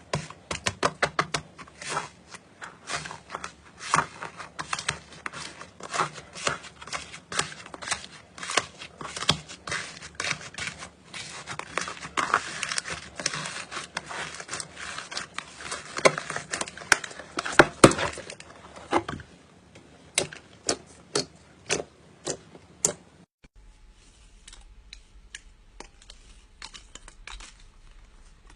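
Slime being squeezed and worked by hand, giving rapid crackling clicks and little pops. About 23 seconds in the sound cuts to sparser pops over a faint low hum.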